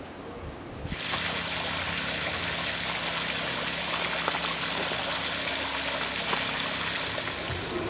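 Steady rush of running water that starts suddenly about a second in, with a faint low hum beneath it.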